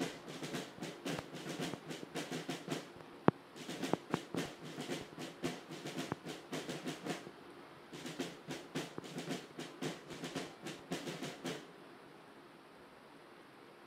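Snare drums beating a rapid marching cadence with rolls, in three phrases with short pauses between, stopping about twelve seconds in. A single sharp click about three seconds in is the loudest sound.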